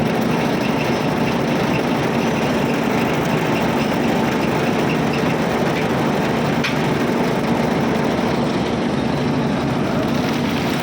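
A machine's engine running steadily.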